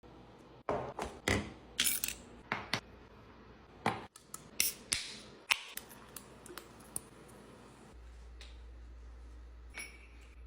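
A quick irregular run of sharp clicks and clinks of small hard objects, some with a brief bright ring. From about eight seconds in, a steady low hum starts up.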